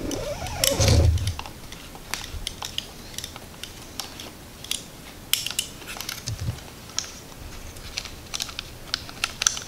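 Irregular light clicks and scrapes of a small Torx wrench working the tiny screws on a motorcycle in-tank fuel pump assembly, metal tool on metal and plastic parts, with a soft handling thump about a second in.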